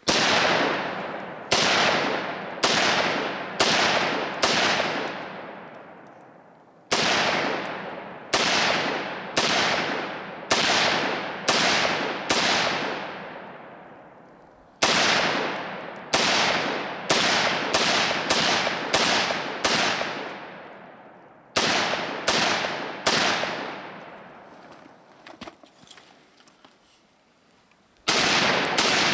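.300 Blackout AR pistol fired semi-automatically, about two dozen shots in strings of several rounds roughly a second apart, with short pauses between strings and a longer pause near the end before two more shots.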